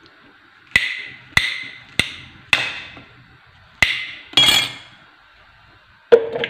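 A table knife cutting a banana into chunks on a plate, its blade striking the plate with a series of sharp clinks, about six, irregularly spaced, each ringing briefly.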